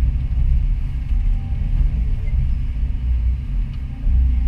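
Doosan DX225 excavator's diesel engine running under hydraulic load, heard from inside the cab: a deep rumble that rises and falls as the boom and bucket move, easing briefly and swelling again near the end.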